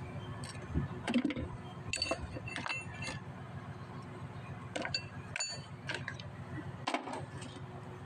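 Steel parts of a hydraulic breaker and hand tools clinking and tapping against each other and the steel workbench as they are handled: a scattering of short metallic clinks, some with a brief ringing tone, over a steady low hum.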